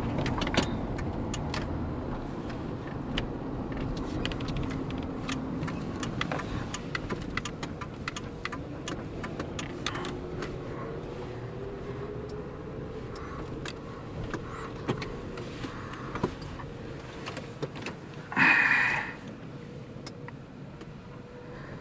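Inside the cabin of a Ford Panther-platform sedan as it slows to pull over: low road and engine noise fading gradually, with many small scattered clicks and ticks. About 18 seconds in comes a brief, louder hissing burst.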